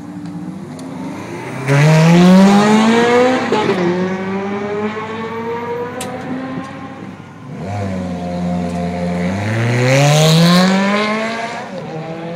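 Two Ferrari F430 V8s pulling away one after the other, each engine revving up sharply and then dropping back at a gear change. The first goes about two seconds in; the second idles briefly and then pulls away near the end.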